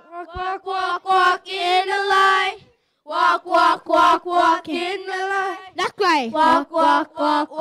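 Children's voices, joined by women's voices, singing an upbeat gospel action song together. The singing breaks off briefly about two and a half seconds in. Around six seconds in, one voice gives a swooping slide up and down.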